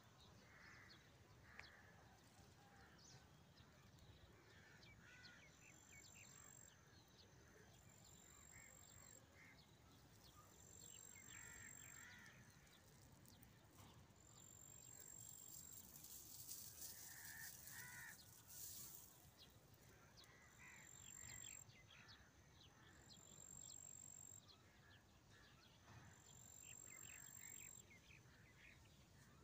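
Near silence: faint background ambience with scattered distant bird calls, and a brief soft hiss about halfway through.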